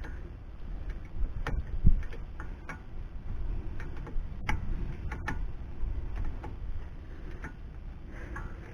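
Irregular clicks of a ratchet wrench and metal tool knocks as a 14 mm bolt on the brake is snugged down, over a low rumble.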